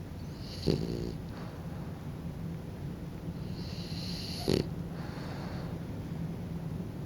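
French bulldog snoring steadily in its sleep, with two brief louder sounds about a second in and about four and a half seconds in.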